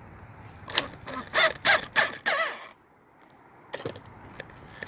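A crow cawing, a quick run of about five or six loud caws a second or so in, followed by a single sharp click near the end.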